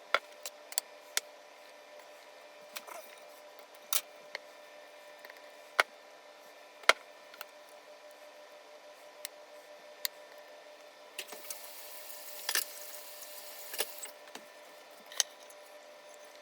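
Kitchen utensils and dishes clicking and knocking against a baking pan and containers while a lasagna is layered, a dozen or so separate sharp taps, with a short stretch of scraping and rustling about eleven to fourteen seconds in, over a faint steady hum.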